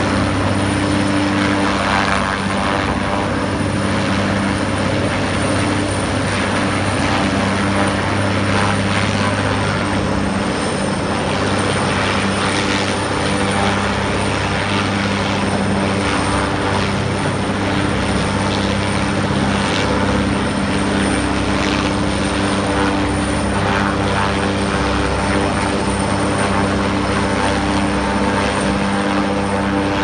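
Helicopter running steadily: a loud, even drone with a few steady low tones from the rotor and engine.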